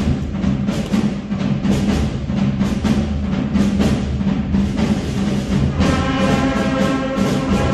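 Children's school wind band playing, with a busy run of drum and timpani strokes carrying the music. About six seconds in, the wind instruments come in with held notes over the drums.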